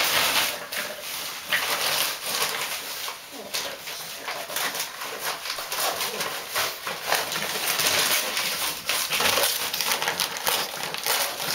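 Pug puppy ripping and shaking newspaper and glossy paper flyers: paper crinkling and tearing in quick, irregular rustles.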